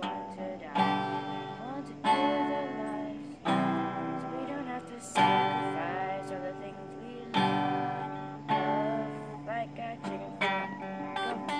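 A boy strumming chords on an acoustic guitar, one strum every second or two, each chord ringing on, while singing along.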